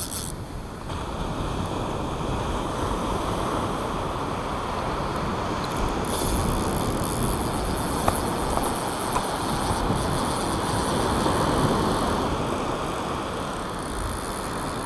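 Drag of a Shimano AX500S spinning reel running as a hooked eagle ray strips line off, the spool almost empty, over breaking surf.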